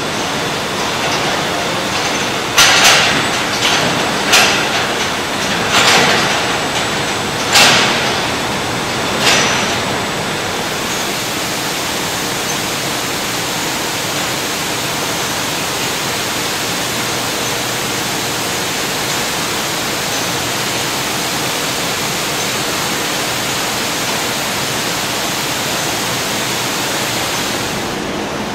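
Steady rushing noise of car-body paint-shop conveyor machinery, with a run of sharp clanks, one or two a second, over the first ten seconds; the rush brightens a little after that.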